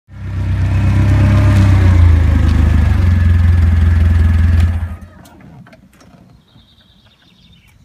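A vehicle engine running close by as it drives over a freshly repaired pothole patch, the first traffic back on the repair. It starts abruptly and stops suddenly about five seconds in, leaving a few faint clicks.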